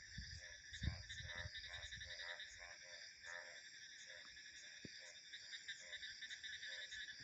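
Frogs calling in short, rapidly repeated croaks over a continuous high trilling of insects, with low wind rumbles in the first two seconds.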